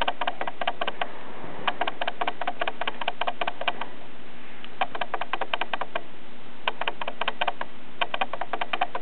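Cat purring right at the microphone: rapid even pulses in runs of a second or two, broken by short pauses as it breathes in and out.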